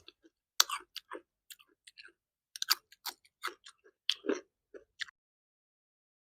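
Close-miked chewing and wet mouth sounds of a person eating curry and rice, a quick run of short smacks and clicks that stops about five seconds in.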